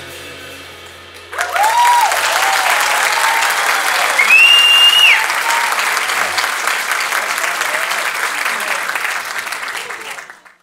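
The band's last chord fades out, then about a second in a theatre audience bursts into applause with shouted cheers and one long, high whistle; the applause dies away and cuts off near the end.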